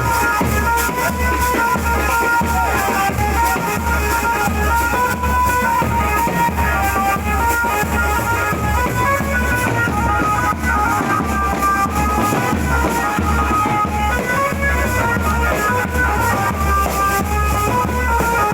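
Loud music with a heavy, steady bass beat about twice a second and a sustained melody line above it.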